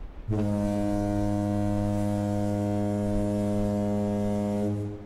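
Ship's horn sounding one long blast of about four and a half seconds: a deep, steady tone that starts and stops abruptly.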